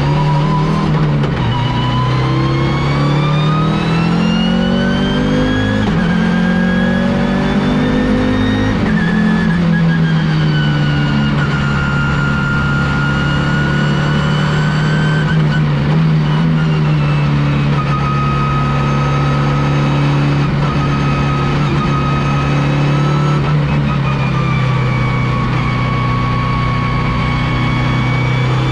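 Audi S2-R race car's turbocharged five-cylinder engine under load. The revs climb through a few gear changes over the first eight seconds or so, then ease and hold fairly steady with small dips, and rise again near the end.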